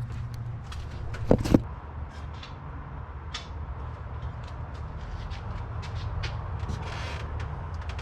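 Metal parts being handled while a water pump is set in place on a GMC 4.8 V8: two sharp knocks about a second and a half in, then light clicks and rattles over a steady low hum.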